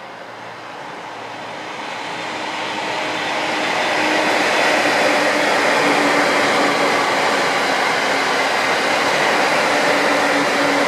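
Electric local train on the JR Utsunomiya Line passing on the track. The rumble of wheels on rails grows over the first four seconds as it approaches, then holds steady and loud as the cars run by.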